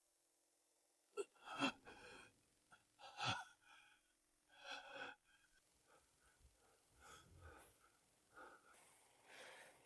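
Near silence, broken by a few faint, short breaths in the first half.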